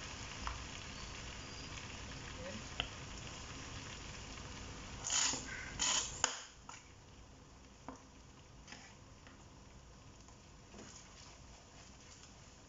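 Spicy sauce sizzling in a wok. About five to six seconds in, a squeezed bottle of chili sauce gives three loud sputtering squirts. The sizzle then drops suddenly much quieter, with a few light clicks of a wooden spatula against the wok.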